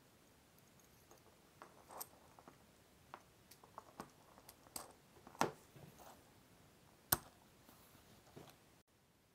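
Faint, scattered clicks and knocks of small metal parts being fitted together by hand: steel coil springs slid onto steel guide rods and an aluminium clamp block pressed down onto them, with two sharper clacks about five and seven seconds in.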